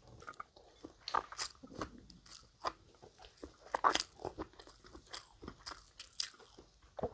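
Crunching bites and chewing of crispy breaded fried chicken strips: irregular crisp crunches, the loudest about four seconds in.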